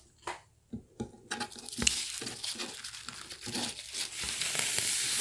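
Paper napkins crinkling and rustling as they are gathered and shifted under foil-cup egg tarts. There are a few light taps at first, then continuous crinkling that grows toward the end.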